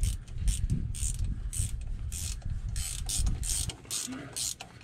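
GearWrench ratcheting wrench clicking in short bursts, one on each back-swing and several a second, as it runs down the bolts of a PTO on the transmission, with dull knocks of the wrench and hands on the housing.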